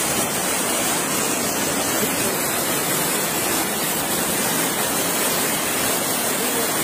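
Fast-flowing muddy floodwater rushing past close to the microphone: a steady, unbroken rush of water noise.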